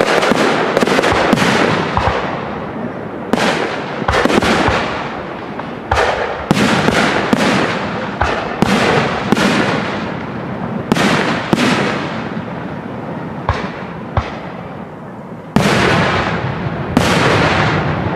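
Aerial firework shells bursting in quick succession, a string of sharp bangs each trailing off in a fading crackle and echo. The bursts thin out briefly about two-thirds of the way in, then two loud bangs come near the end.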